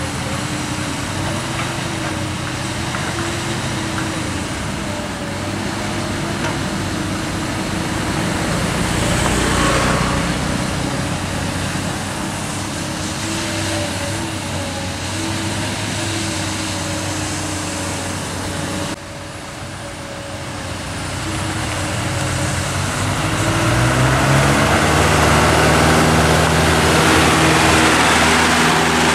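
Dump truck engine running as the truck moves slowly past on a dirt road. Near the end the engine grows louder and climbs in pitch as it pulls away close by.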